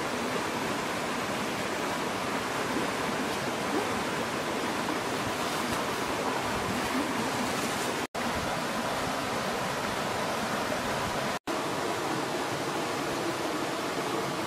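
Steady, even rushing background noise with no distinct events, broken by two brief silent gaps about eight and eleven seconds in.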